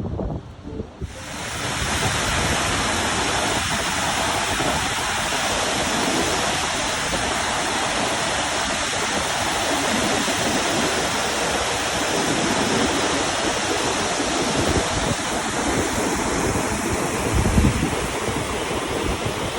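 Water pouring over a dam spillway: a steady, loud rushing noise that starts abruptly about a second in.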